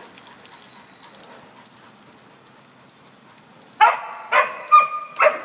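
A dog barks about four times in quick succession, starting near the end after a few seconds of faint background hiss.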